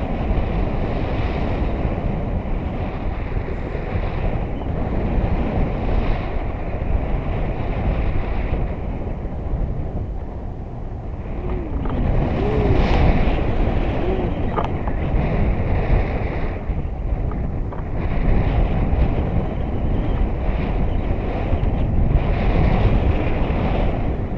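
Wind buffeting an action camera's microphone during a tandem paraglider flight: a loud, steady rushing roar that swells and eases. About halfway through, a few short pitched tones that rise and fall come through the rush.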